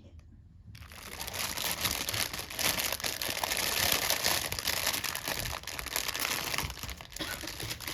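Pastry packaging crinkling and rustling as it is handled and opened. It starts about a second in and continues as dense, crackly rustling.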